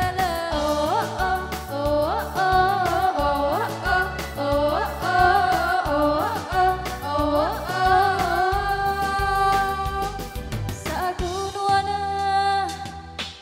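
Live performance: young women singing a melodic song into microphones, the voice sliding and ornamenting between notes, over electronic keyboard backing with a steady beat.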